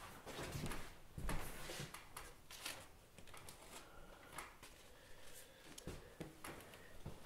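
Handling sounds on a wooden worktable: paper and a cloth rustling and being pressed down, with several soft knocks, the loudest a little over a second in.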